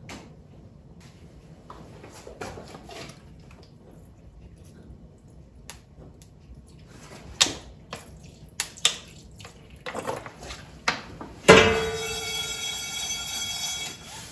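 Vinegar poured from a bottle into a copper pot of fig chutney, with scattered clicks and knocks of the bottle. About two-thirds of the way in comes a sudden metallic clatter, then a sustained ringing rattle and scrape as a small metal pan of toasted seeds is moved on the stove.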